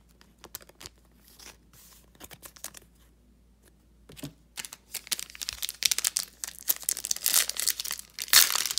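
Faint rustles and clicks of a trading card being slid into a plastic sleeve. From about four seconds in, dense crinkling of a foil card pack being handled and torn open, loudest with a sudden tear near the end.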